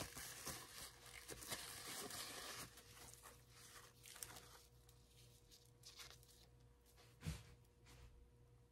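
Faint rustling and handling noises, fading after the first few seconds, with a single soft knock about seven seconds in, over a low steady hum.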